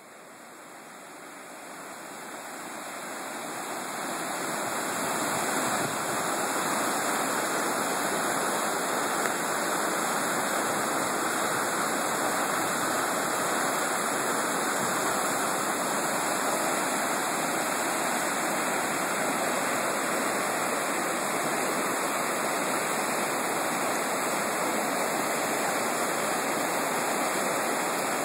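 Rushing white water of the Peshekee River rapids, a steady, even noise of fast-flowing water that grows louder over the first five seconds or so and then holds.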